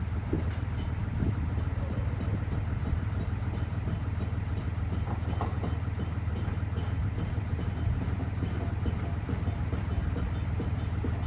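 A delivery truck's engine idling steadily, a low, even hum, with a few faint knocks and rattles over it.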